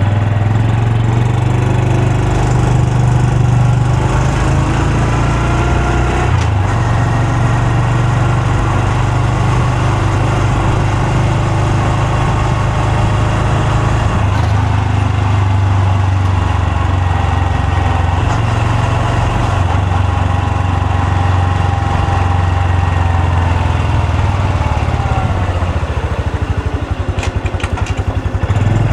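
Honda Super Cub C125's single-cylinder four-stroke engine and exhaust running under way, a steady note that rises in pitch over the first few seconds and falls again near the end as the bike eases off.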